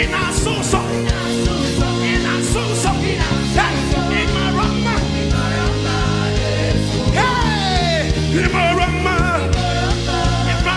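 Worship band music with a steady drum beat, bass and sustained chords, and a gliding, wavering lead melody over them.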